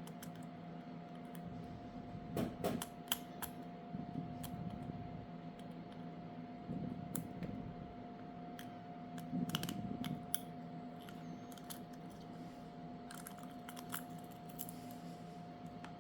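Scattered small clicks and taps of hand tools and phone parts being handled during smartphone disassembly, with a few louder clusters, over a steady hum.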